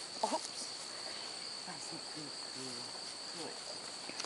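Steady high-pitched chirring of crickets in late summer grass, with a few faint, short voice-like sounds over it.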